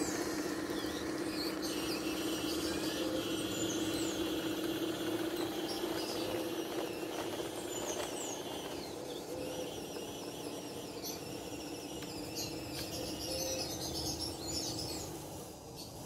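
Electric drive motors and gearboxes of a radio-controlled model D11 bulldozer whining steadily as it crawls over dirt, the whine weakening after about ten seconds as the machine moves away. Birds chirp in the background.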